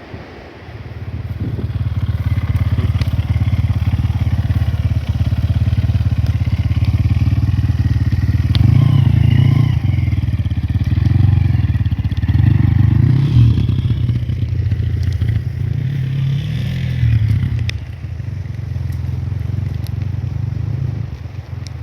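A motor vehicle's engine running steadily, swelling a little in the middle, with some clatter.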